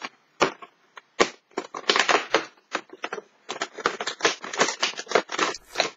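Cardboard advent calendar door being pried and torn open and a small wrapped chocolate pulled out: a run of irregular crackles and rustles, sparse at first and then dense.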